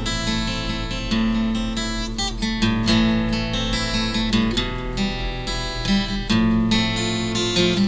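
Acoustic guitar music with steady plucked and strummed notes.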